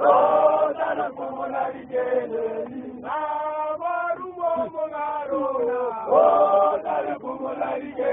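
A group of men chanting and singing together in a Zion Christian Church mokhukhu chant, with louder surges at the start and about six seconds in.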